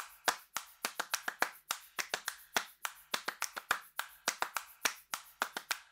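A rapid run of short, sharp clicks, about four to five a second and slightly uneven, like snaps or claps in a sparse percussion track, over a faint steady low hum.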